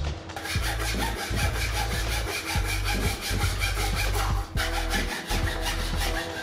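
Hand fretsaw cutting a curved slot through thin plywood in quick, even back-and-forth strokes, with a short break about two-thirds of the way through before the sawing resumes.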